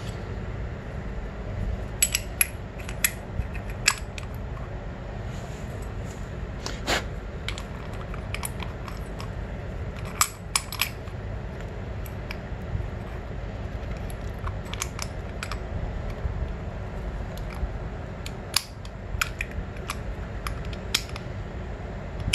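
New sintered brake pads and a dirt bike's front brake caliper being handled and fitted together: scattered light metallic clicks and clinks as the pads and pad pins are seated, in a few small bunches, over a steady low hum.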